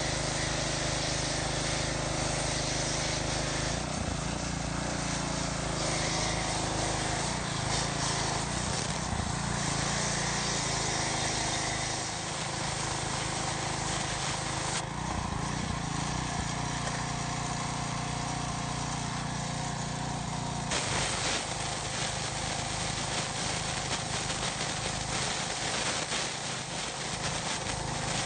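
A pressure washer's small engine runs steadily under the hiss of the high-pressure water jet blasting a juicer's mesh filter basket. The engine's pitch shifts now and then, and the spray hiss eases for several seconds past the middle.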